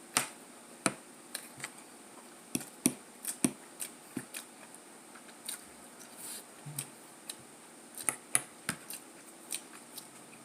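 Close-up eating sounds: irregular sharp clicks and wet smacks of chewing, a few a second at times.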